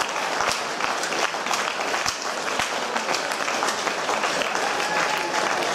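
Steady applause: many hands clapping at once, dense and overlapping, as the rugby players clap each other off at full time.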